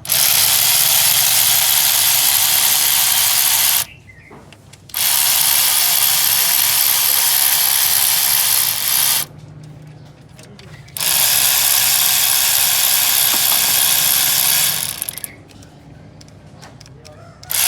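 Cordless power tool run in three long bursts of about four seconds each with short pauses between, then a brief burst near the end.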